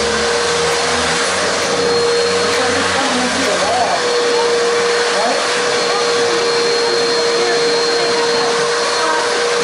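Wet/dry vacuum running steadily as it sucks standing flood water out of soaked carpet: a constant rush of air with a steady motor whine.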